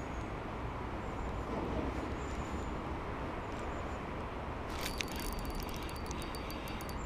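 Steady low background noise; about five seconds in, a spinning reel starts a rapid, dense clicking as a small bass is hooked and reeled in.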